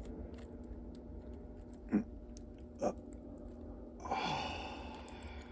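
Fingers prying and crumbling dry, compacted soil from around a buried bottle, faint crunching and scraping of dirt, with two short scrapes about two and three seconds in and a longer rustle of loosening dirt about four seconds in.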